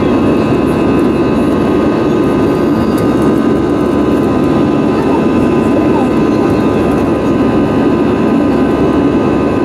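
Cabin noise of an Airbus A320-family jet climbing shortly after takeoff: a loud, steady rumble of the engines and rushing air, with several faint steady whining tones above it.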